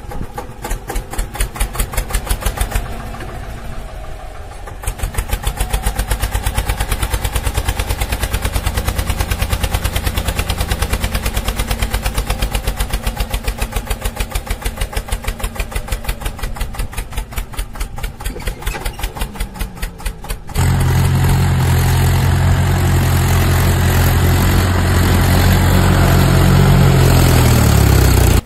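Homemade mini tractor's engine chugging with a rapid, even beat as it drives along. About two-thirds of the way in, a louder, steadier engine hum takes over, from a full-size tractor running close by.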